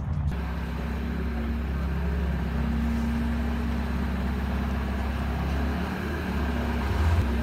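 Porsche 918 Spyder's V8 engine idling steadily with a low, even note.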